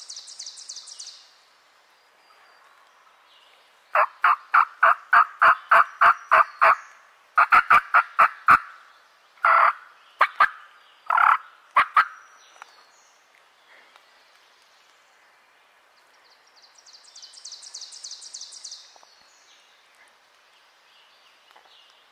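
A series of turkey yelps: a run of about ten evenly spaced yelps, then a faster run of notes and four single calls. A high, fast songbird trill sounds at the start and again near the end.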